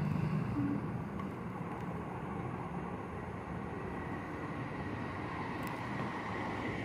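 Steady background rumble and hiss with no distinct events, with a faint high whine coming in about halfway through.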